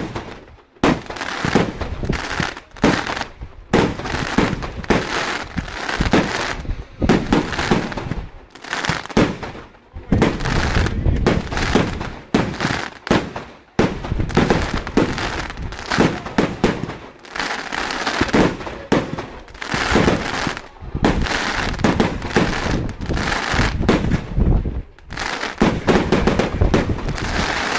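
Aerial fireworks display: a dense, rapid barrage of shell bursts and crackle, many reports a second, with a few brief lulls.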